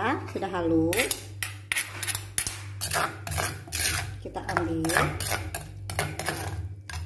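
Metal spoon scraping and clinking against a stone mortar as ground spice paste is scooped out, in a run of short, repeated scrapes with brief squeaks.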